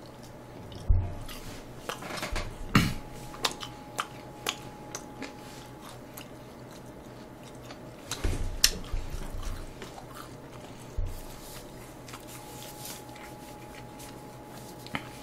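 Close-miked chewing of a piece of battered, deep-fried sweet-and-sour pork (tangsuyuk), with irregular crunches. The crunches come for most of the first eleven seconds, then the chewing goes quieter.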